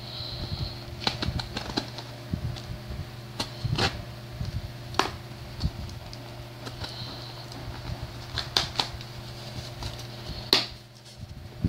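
Scissor blade scraping and snagging along the packing tape of a cardboard shipping box, making irregular clicks and scratches, over the steady hum of an electric fan.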